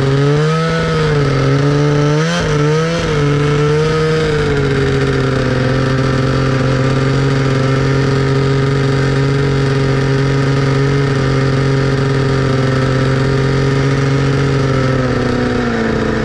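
Snowmobile engine running under throttle as the sled travels, its pitch rising and falling over the first few seconds, then holding steady at a cruising pace before easing off near the end.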